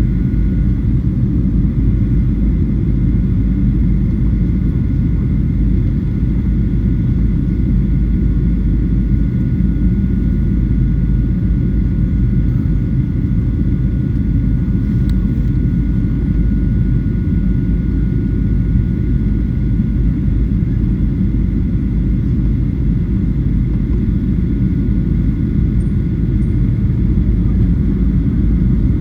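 Steady cabin noise inside a Boeing 737-900 on its descent: a loud, even low rumble of airflow and CFM56-7B jet engines, with a faint steady high whine above it.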